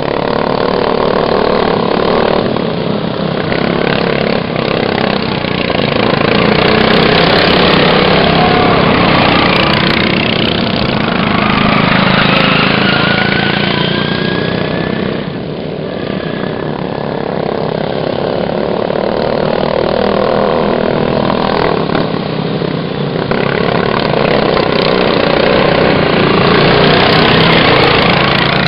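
Racing lawn mower engines running loud, swelling and fading every few seconds as the mowers pass, with a rising whine partway through as an engine revs.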